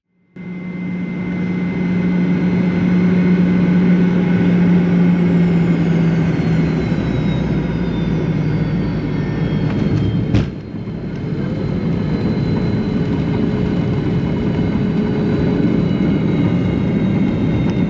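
Fokker 100 cabin noise during landing, next to its rear-mounted Rolls-Royce Tay turbofan. The engine whine falls in pitch as thrust comes back. About ten seconds in there is a sharp thump of touchdown, then the steady rumble of the landing roll.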